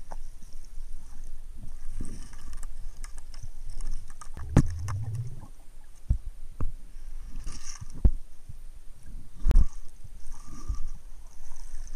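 Underwater handling noise from a camera in a waterproof housing: a low rumble with scattered sharp knocks and thumps, a few seconds apart, as the housing is moved and bumped. A faint hiss comes and goes on top.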